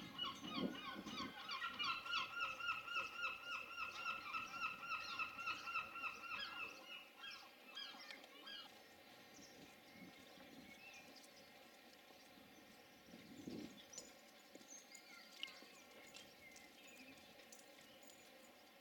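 Gull calling in a fast run of repeated yelping notes, about four a second, fading out about seven seconds in; after that only faint background sound remains.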